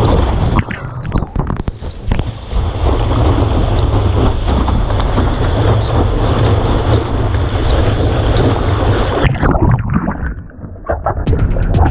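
Wind buffeting an action camera's microphone over rushing surf water, a loud, steady rumble with crackles. It drops away about ten seconds in.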